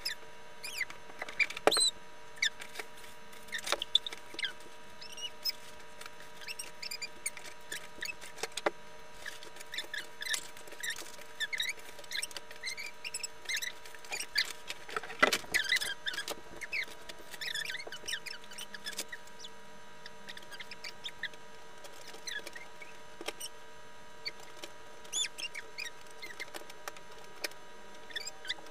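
Toy packaging being opened and handled: scattered crinkles, scrapes, clicks and small squeaks from cardboard and plastic, over a faint steady hum.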